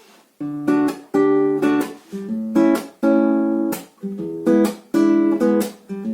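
Acoustic guitar strummed in a steady rhythm of chords, about two strums a second, as the introduction of a song.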